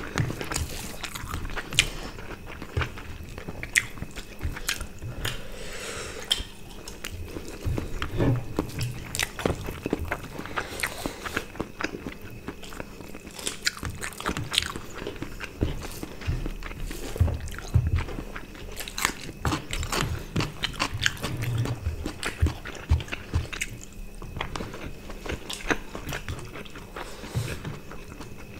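Close-miked eating: chewing and biting into roast chicken and rice eaten by hand, with frequent irregular sharp crunches and clicks throughout.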